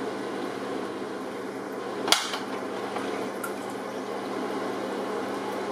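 Steady bubbling of a pot at a rolling boil on the hob, with one sharp click about two seconds in.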